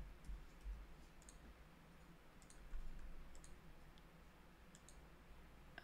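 Faint, scattered clicks of a computer mouse and keyboard, with near silence between them.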